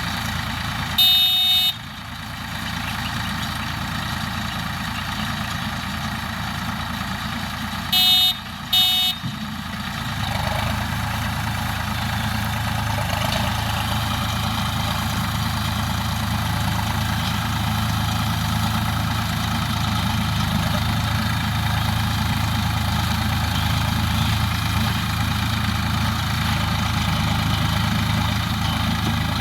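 Tractor engine running a Bull automatic straw baler, steady throughout. A horn-like honk sounds about a second in and two short honks follow about eight seconds in; then, about ten seconds in, the engine's low hum grows louder and holds steady, as if under more load.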